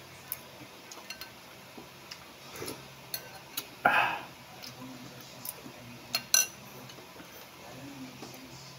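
Eating sounds: a metal spoon clinking now and then against the dishes, with chewing and mouth noises, and one louder short mouth sound about four seconds in. Two sharp clinks come close together past the six-second mark.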